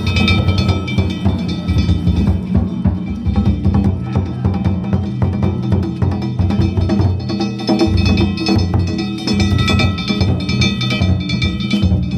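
Danjiri festival music (narimono): a big taiko drum beaten in a fast, unbroken rhythm together with ringing hand gongs (kane).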